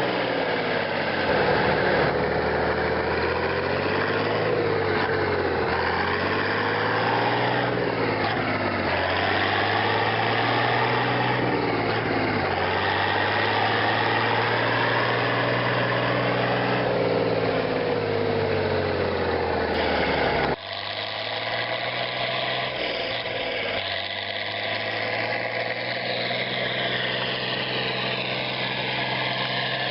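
Landini 10000 S mk II tractor's Perkins A6.354.4 six-cylinder diesel engine running steadily at a low, even speed. About two-thirds of the way through, the sound changes abruptly and becomes thinner, losing much of its deep low end.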